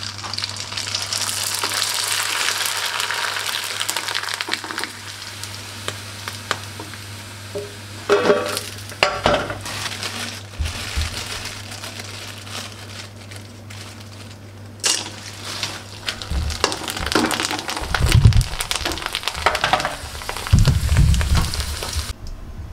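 Snack fingers sizzling as they deep-fry in hot oil in a small wok, loudest in the first few seconds, with a spatula stirring and knocking against the pan. Heavier bumps and thumps near the end as the camera nearly falls toward the pan.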